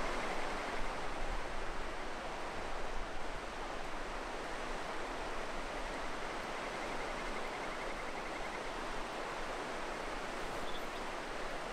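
Shallow, rocky mountain river rushing over riffles below a footbridge: a steady, even rush of water.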